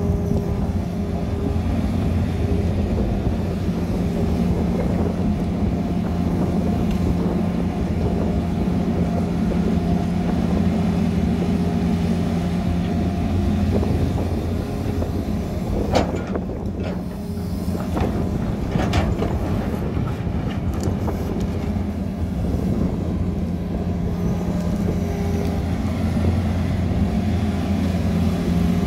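Tata Hitachi Zaxis 220 hydraulic excavator's diesel engine running steadily under load as it digs and swings a loaded bucket, its pitch shifting slightly with the work. A short run of knocks and clatter comes about two-thirds of the way through.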